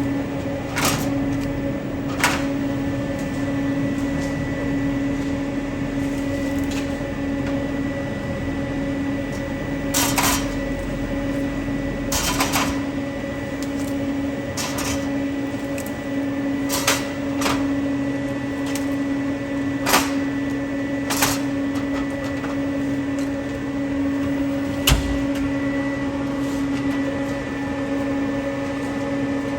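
Steady electrical hum of a drink vending machine, with about ten sharp clicks and clunks every few seconds as it is restocked: doors, trays and drinks being handled.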